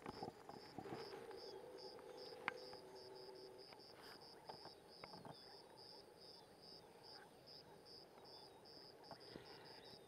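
Near silence with an insect chirping steadily, a short high chirp about three times a second, and one faint sharp click about two and a half seconds in.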